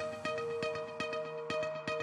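Background music: electronic music with steady held tones and a regular beat of about four short strikes a second.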